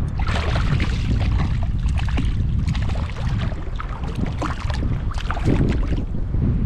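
River water splashing and sloshing in irregular bursts over a steady low rumble of wind on the microphone.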